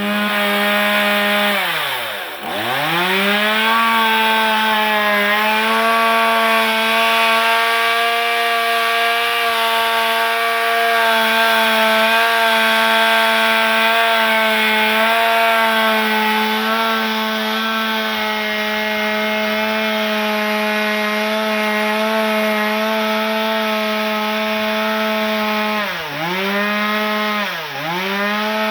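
Two-stroke chainsaw running at high revs while cutting wood, giving a steady high engine note. The revs dip sharply and recover about two seconds in, and twice more in quick succession near the end.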